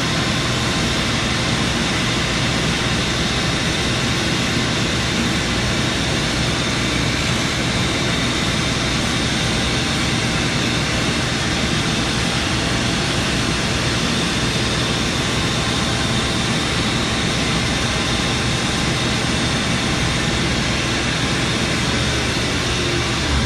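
Shoe finishing machine running with its dust-extraction fan and a shop vacuum, a loud steady rushing hum. A rubber Birkenstock sole is being sanded on the machine's light-grit Naumkeag pad.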